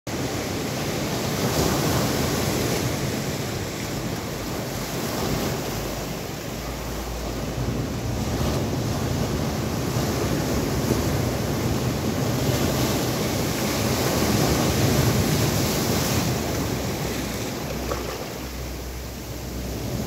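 Sea waves breaking and washing over rounded shoreline boulders, a steady rush of surf that swells and eases every few seconds.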